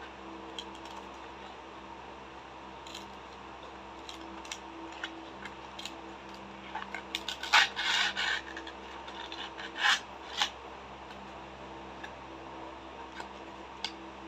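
Cardboard box being opened by hand and a plastic blister tray slid out of it: paper and plastic rubbing and scraping with scattered small clicks. The loudest scraping comes in a cluster about halfway through, with another short burst a couple of seconds later.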